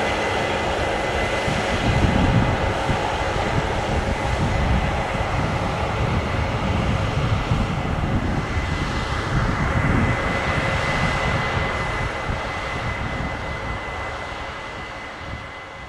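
Case IH 9230 Axial-Flow combine harvesting wheat: its diesel engine and threshing machinery run with a steady drone and a high whine. The noise fades away over the last few seconds.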